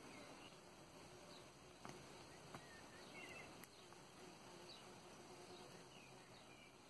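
Near silence: faint outdoor ambience with a few short high chirps and a few faint clicks of chainmail rings handled between the fingers.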